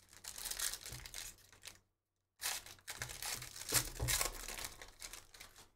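Foil wrapper of a 2023-24 Panini Donruss Basketball hobby pack being torn open and crinkled by hand. It comes in two stretches of crinkling, with a short pause about two seconds in.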